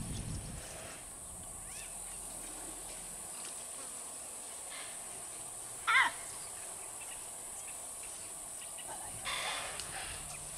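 Bush ambience: a steady high-pitched buzz with faint scattered chirps. About six seconds in comes a single short, loud animal call. Near the end there is a brief rustling burst.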